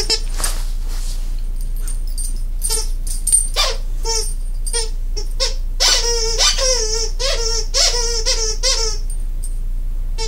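A squeaky owl toy being chewed by a dog: a string of short, high squeaks, about three a second, that stops near the end.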